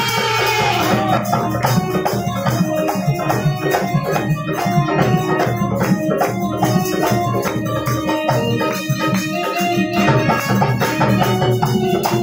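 Lively instrumental folk music: a fast, steady beat of hand percussion with jingling rattles over held organ-like chords.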